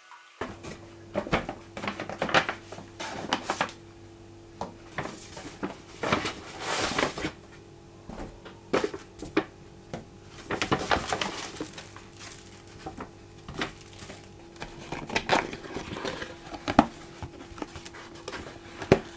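Paper takeout bag and cardboard food box being handled and opened: a run of short paper rustles and crinkles, over a steady low hum.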